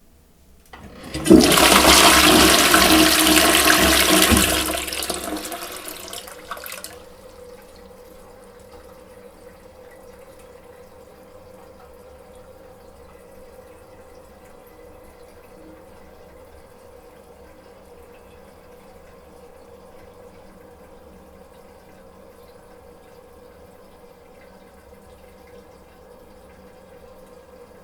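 Toilet flushing: a loud rush of water starting about a second in and dying away over the next six seconds, followed by the cistern refilling as a faint steady hiss with a steady tone in it.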